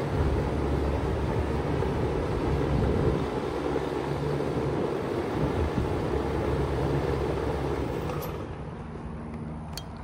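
Bard 3-ton wall-mounted heat pump running in cooling mode: a steady low compressor hum under the rush of its condenser fan. About eight seconds in the sound drops and the airy rush fades, leaving a lower hum, followed by a couple of sharp clicks near the end.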